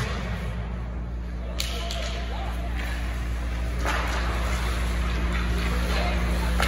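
Ice hockey game sounds in a rink: a steady low hum, a single sharp crack about a second and a half in, and from a little past the middle a rising scraping wash of play on the ice.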